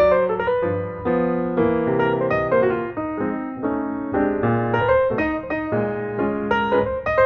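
Background music: solo piano playing a flowing melody of struck notes over lower chords.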